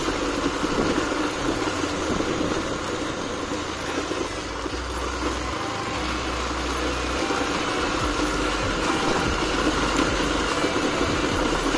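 Vehicle moving along a street: steady engine and road noise.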